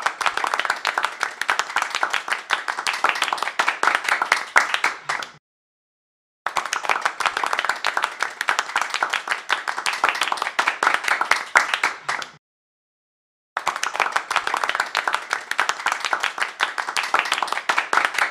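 Recorded applause, many hands clapping, played as a sound effect in three stretches of about six seconds, each cutting off suddenly into a second of silence.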